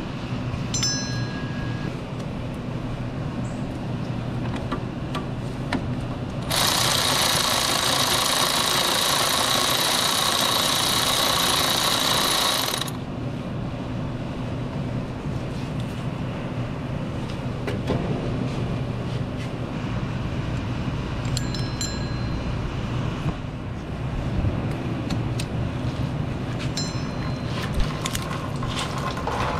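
Cordless electric ratchet whirring steadily for about six seconds, spinning a power steering line fitting off the pump. Before and after it come a few light metallic clinks of tools.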